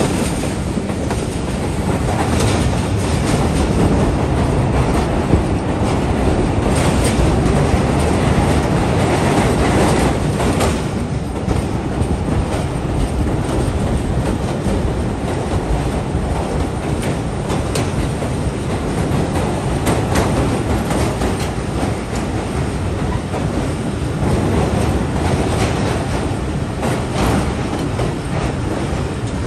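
Passenger train coaches running at speed, heard from an open doorway: a steady rumble of wheels on rail with occasional clicks. Partway through, the train runs onto a steel truss railway bridge.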